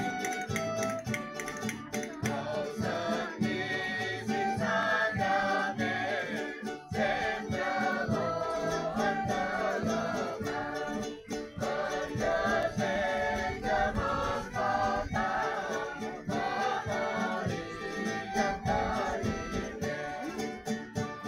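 Folk string band of acoustic guitars, small plucked instruments, violins and flutes playing a tune, with the group singing together through most of it.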